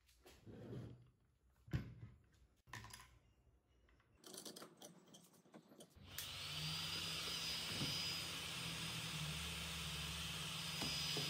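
Light handling knocks and rustles, one of them sharp, then about halfway through the 24 V blower fan of a homemade soldering-iron hot air gun is heard running: a steady rush of air with a low hum and a faint high whine.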